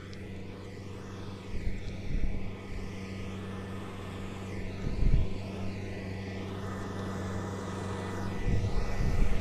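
Kubota rice combine harvester's diesel engine running at a steady hum, getting louder near the end as the machine comes closer. Wind gusts buffet the microphone several times in low rumbles.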